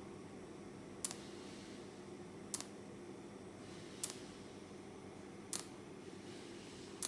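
Markweld WS-250 cold TIG welder firing short arc pulses: a sharp snap about every one and a half seconds, five in all, which is the set 1.4-second pulse interval of continuous cold-TIG mode laying overlapping spot welds. A steady low hum runs underneath.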